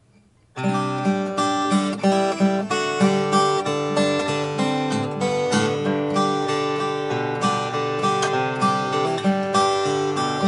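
Martin 000-28 Special steel-string acoustic guitar with a premium Sitka spruce top, fingerpicked in a country style with picked bass notes under a melody. The playing starts about half a second in.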